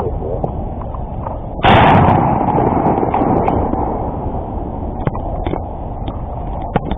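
A single shotgun blast about a second and a half in, its boom trailing off over a second or so, over steady background noise.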